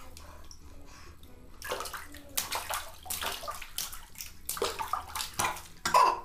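Bathwater splashing and sloshing in a bathtub as a baby moves in it, in several bursts, the loudest near the end.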